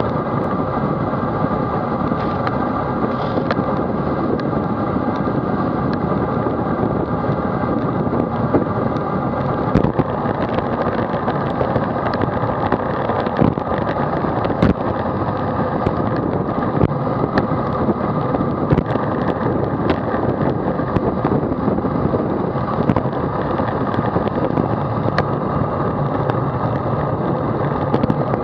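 Steady wind and road noise on a bicycle-mounted action camera: wind rushing over the microphone and tyres running on tarmac, with scattered knocks from bumps in the road.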